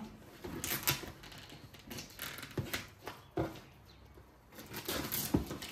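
Plastic wrapping on a box crinkling and rustling as it is slit open with a small blade, in scattered light clicks and crackles.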